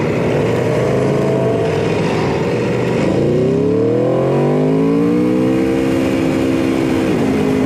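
Aprilia RSV4 RF's 65° V4 engine pulling away under acceleration, its pitch rising steadily through a gear and then holding. Near the end the pitch steps down abruptly with an upshift.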